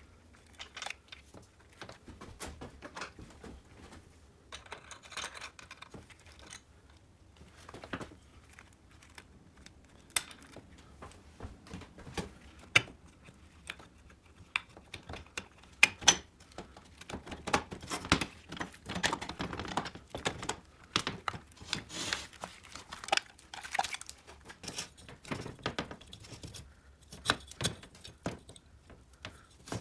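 Hands working on a bare aluminium motorcycle engine crankcase: irregular light clicks and taps of metal parts, with stretches of scraping and rustling, busiest in the second half.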